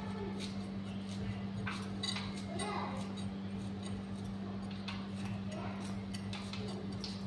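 Banana stem pith being cut into small pieces against a fixed curved boti blade, with irregular clicks and taps as the pieces drop onto a steel plate. A steady low electrical hum runs underneath.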